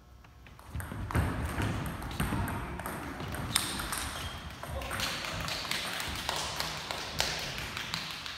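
Table tennis rally: the ball clicks in quick succession off the paddles and the table, starting about a second in, over the scuffing of the players' footwork.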